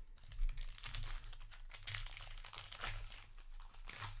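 The foil wrapper of a Magic: The Gathering play booster pack is crinkled and torn open by hand. Irregular crackles run throughout, with louder bursts as it rips.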